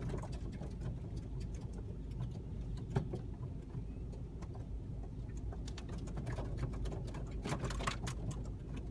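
Low steady rumble of a car with scattered sharp ticks and clicks from a swarming flock of blackbirds around and on it, with a thicker cluster of sharp bird calls between about six and eight seconds in.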